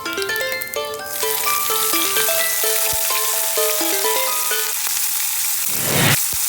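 Food sizzling in hot oil, a steady hiss that comes in about a second in, under a plucked background melody.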